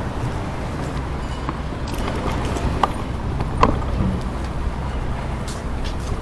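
Traffic and road noise while riding a Citi Bike along city streets: a steady rumble, a louder surge about two seconds in, then two sharp knocks a little later.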